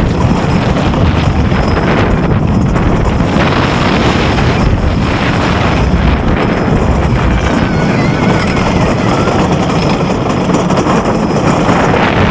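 Wooden roller coaster train running along its track, a loud, steady rumble with wind rushing over the microphone.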